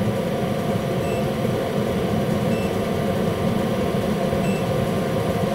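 Gas furnace running steadily, its induced draft motor humming with the burner lit. Three short, faint beeps from the digital multimeter as its range button is pressed.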